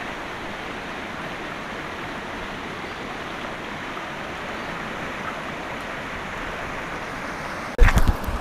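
Small mountain trout stream flowing over rocks: a steady rush of water. Near the end, a brief loud bump and rustle of handling noise as the angler swings round to land the fish.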